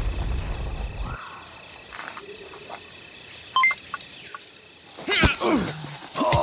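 The low rumble of an explosion dies away in the first second, leaving steady insect chirping. About five seconds in and again near the end come two sharp sounds that fall quickly in pitch.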